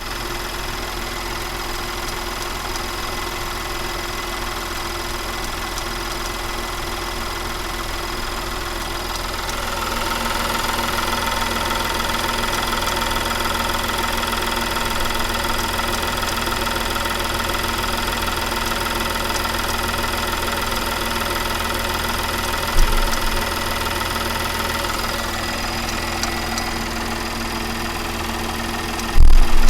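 Audi A5 3.2 FSI V6 engine idling cold with a weird metallic sound, a fault that only shows when the engine is cold. About ten seconds in it gets slightly louder with a higher tone added, and there is a brief knock later and a loud thud near the end.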